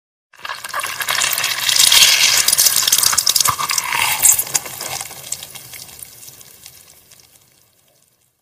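Wet squelching of a peeled banana squeezed in a fist, the soft pulp squishing out between the fingers. It starts just after the beginning, is loudest in the middle and fades away over the last few seconds.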